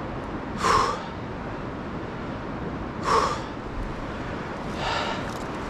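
A man breathing hard from exertion: three loud breaths about two seconds apart, the third fainter, over a steady background hiss.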